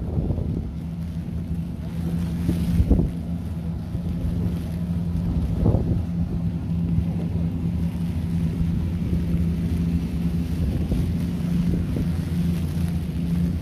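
An engine running steadily with a low drone, with rumbling wind buffeting on the microphone and a couple of low thumps about three and six seconds in.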